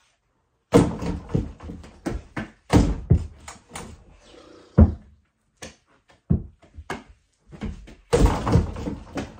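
A run of irregular thumps and knocks from a ball and feet on the floor, then about eight seconds in a louder clatter lasting about a second as the ball is dunked through an over-the-door mini basketball hoop, its rim and backboard banging against the door.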